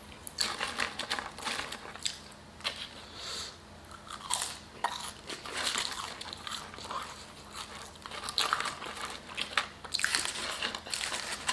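A person chewing and biting food close to the microphone, with irregular crunchy mouth sounds throughout.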